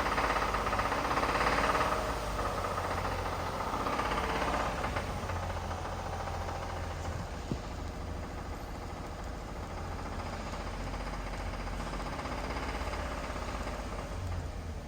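Toyota Tundra engine running steadily with a rapid rhythmic knock, about 30,000 miles on it. A single sharp click about seven and a half seconds in.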